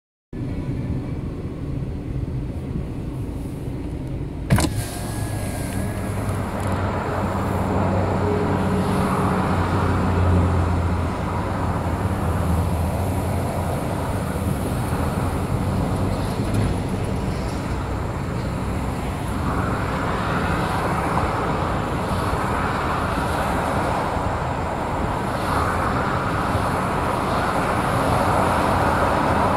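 Steady traffic noise from cars and vans passing on a multi-lane expressway, the tyre hiss swelling and fading as vehicles go by. A low engine hum stands out in the first ten seconds or so, and there is a single sharp click about four and a half seconds in.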